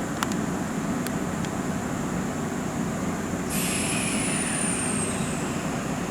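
Electric train at a station platform, running with a steady hum. About halfway through, a hiss of air starts along with a high whine that slowly falls in pitch.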